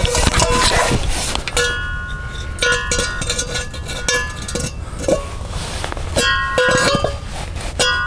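A sheet-metal tractor muffler knocking and clanking against the exhaust pipe as it is worked down onto the stack. The knocks come in clusters, each ringing briefly like a cowbell.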